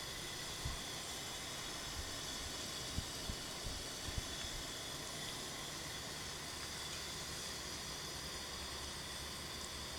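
Steady hiss of a fan heater running, with a few soft low thumps in the first half.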